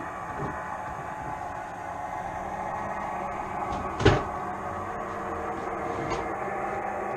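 Model train running on the layout with a steady hum and rumble, and one sharp knock about four seconds in.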